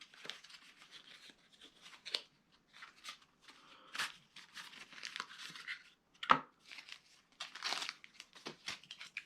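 Paper and cardboard packaging rustling and crinkling as the contents of a small product box are rummaged through, with a couple of sharper clicks about four seconds in and past six seconds.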